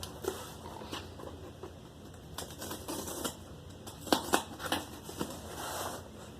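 Fingers picking and scratching at packing tape on a cardboard box: scattered light clicks and taps, with a cluster of sharper ones about four seconds in and a scratchy rasp near the end.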